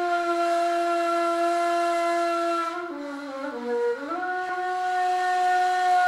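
Ney, the Turkish end-blown reed flute, opening an improvised hicaz taksim. It holds a long breathy note, steps down through a few short notes about three seconds in, then rises to a slightly higher held note.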